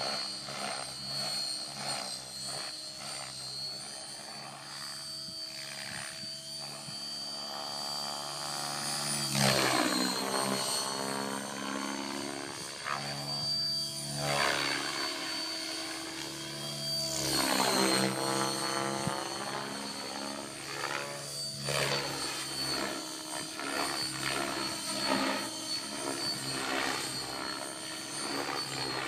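Outrage Fusion 50 radio-controlled helicopter flying 3D aerobatics: a steady high whine with rotor noise. The pitch sweeps and the sound swells as it swoops past, loudest about nine and eighteen seconds in.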